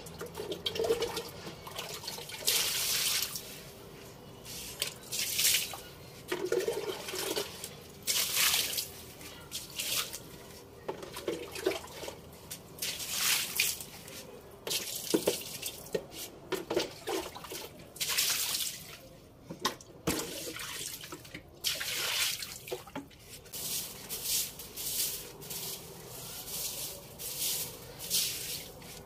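Water splashing and wet scrubbing during cleaning, in short, irregular hissy strokes that come and go throughout.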